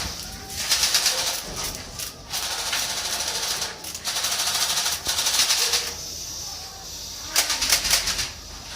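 Airsoft guns firing rapid full-auto bursts, a fast rattle of clicks, in four bursts with short gaps between them.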